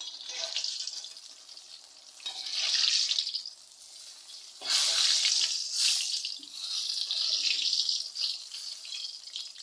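Battered chicken pieces sizzling in hot oil at the end of deep-frying, as they are being taken out. The hiss swells and fades several times.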